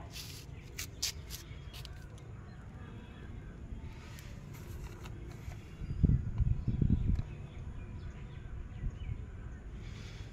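Handling noise: low thumps and rustling as a cutting in a black plastic nursery bag is picked up and moved about six seconds in, over a steady low background rumble. A few short, sharp high clicks come in the first second or so.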